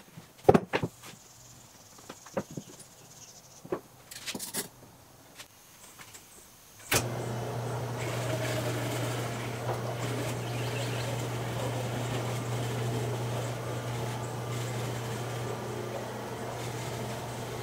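A few sharp knocks of plywood boards being handled on a wooden workbench. About seven seconds in, a floor-standing drill press starts up and runs steadily with a low hum, drilling into plywood.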